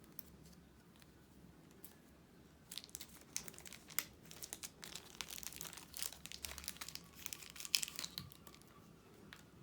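Packaging being handled and opened, crinkling and crackling in quick sharp bursts from about three seconds in until shortly before the end.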